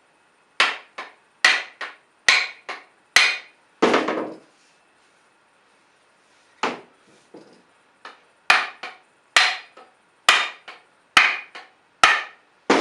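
Hammer blows driving a double-bit axe head down onto its wooden handle: about twenty sharp strikes, mostly a hard hit followed by a lighter one, in two runs with a pause of about two seconds between them.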